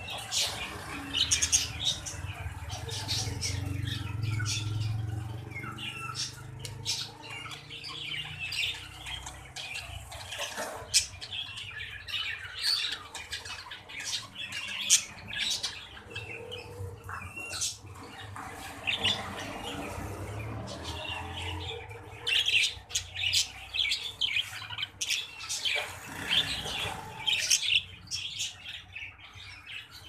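Budgerigars chattering in a steady run of short, sharp chirps and squawks, with a few louder single calls in the middle.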